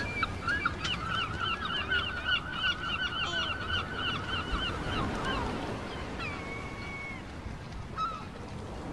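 Gulls calling: a fast run of laughing call notes, about four a second, for some five seconds, then one drawn-out call and a short one near the end.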